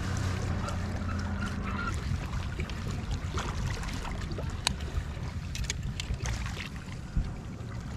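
Boat motor droning low and steady, with a hum clearest in the first couple of seconds, under scattered sharp clicks and knocks of handling.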